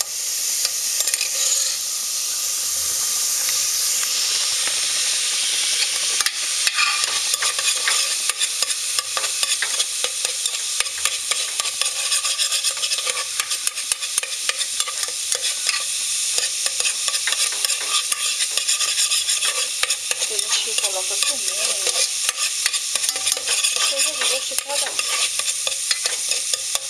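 Minced garlic sizzling in melted margarine in the nonstick inner pot of a Mondial Pratic Cook electric pressure cooker, a steady crackle of many small pops. A utensil scrapes through it at the start as the garlic is stirred.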